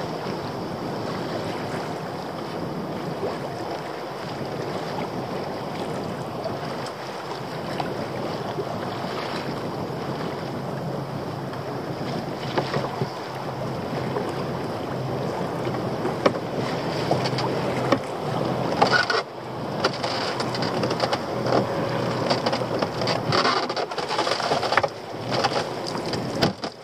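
Sea water lapping and splashing against a small open boat, with wind on the microphone. In the last third come splashes, drips and knocks as a lobster pot is hauled up hand over hand to the side of the boat.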